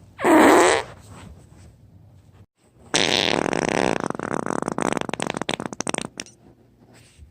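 Fart sounds: one short blast just after the start, then, about three seconds in, a long sputtering fart of about three seconds with a rapid rattle.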